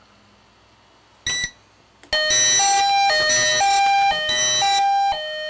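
Fire alarm voice-evacuation speakers sounding the alert tone of a system drill. A short beep just over a second in, then from about two seconds in a loud tone switching back and forth between a lower and a higher pitch about twice a second.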